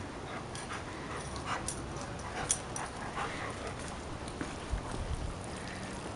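Dogs playing: scattered light clicks and scuffs as they move, with faint whimpering.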